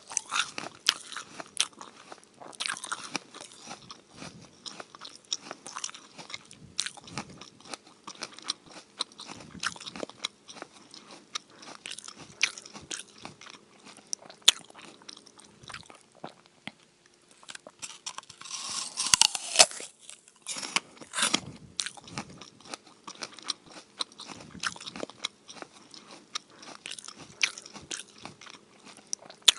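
A person biting and chewing a crisp raw apple: continuous wet crunching, with two louder crunches close together about two-thirds of the way through.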